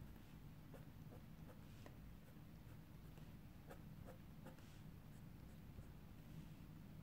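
Faint scratching of a fine-liner pen nib on a paper tile as it draws short strokes, coming as many small, irregular ticks, over a low steady room hum.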